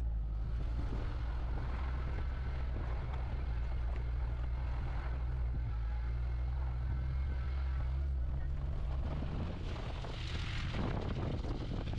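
Car engine and road noise heard from inside the cabin while driving: a steady low rumble. About ten seconds in, a brief rush of hiss rises over it.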